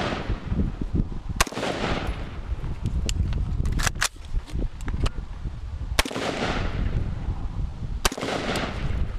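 AR-15 carbine shots fired one at a time, a second or two apart, each a sharp crack with a ringing echo tail, and fainter cracks in between. A steady low rumble runs under them.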